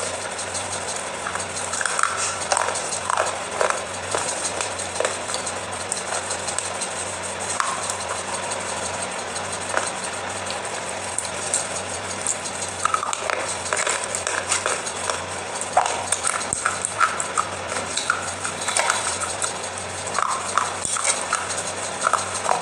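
Wet clay paste being squished and mixed by hand on a steel plate and chewed, giving many small sticky clicks and crackles over a steady hiss.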